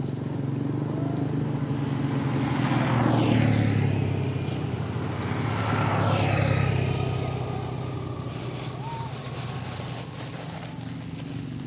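Road vehicles passing: two go by, the first peaking about three seconds in and the second around six and a half seconds in, each swelling and fading with a falling pitch, over a steady low engine hum.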